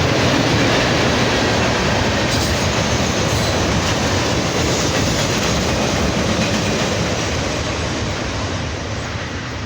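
Train's railcars rolling past: a steady noise of steel wheels on the rails, growing quieter over the last couple of seconds.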